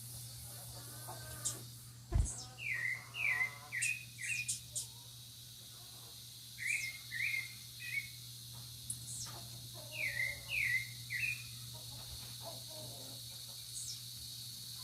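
Wild songbird singing three bursts of three to four short, quickly falling whistled notes, with fainter high chirps from other birds. There is a single brief thump about two seconds in.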